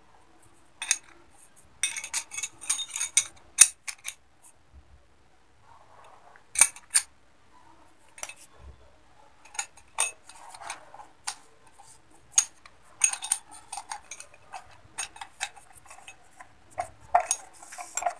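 Brass parts of a Hindware Metropole push valve clinking and clicking as they are handled and screwed together by hand: irregular light metallic taps in scattered clusters.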